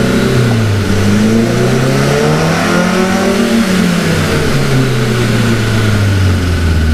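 Cushman kei mini truck engine revving up through a higher gear after second and third, as the speedometer climbs to about 140 km/h. The pitch rises to a peak about three seconds in, then falls back and holds steady, with a faint steady high whine beneath it.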